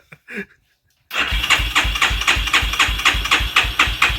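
Single-cylinder ATV engine running at idle, a steady even thump about five times a second, starting abruptly about a second in.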